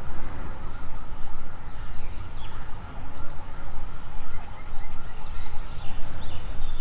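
Outdoor park ambience: a steady low rumble, with a faint high call repeating about three times a second and scattered short bird chirps.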